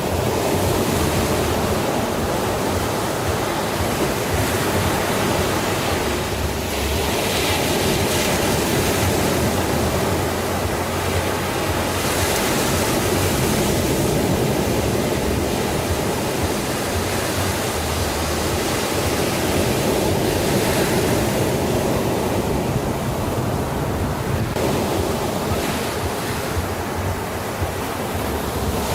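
Sea waves washing on a shore: a continuous rush of surf that swells into a brighter hiss every several seconds as waves break.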